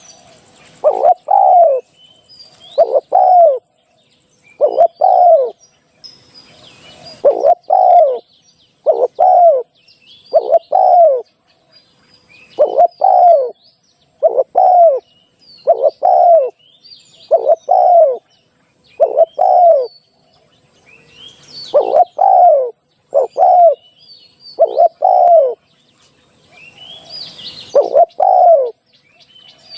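Spotted dove cooing: short, low, downward-curving coo phrases, mostly in pairs, repeated about every two seconds. Faint high chirps of small birds sound in the background.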